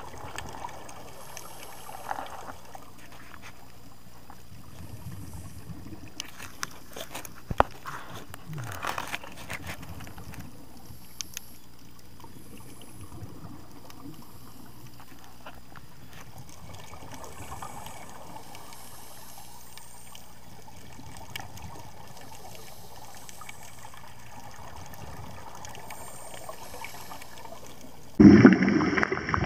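Underwater ambience: a steady low hiss with scattered clicks and taps. Near the end a loud burst of bubbling comes in from a scuba diver's regulator exhaling.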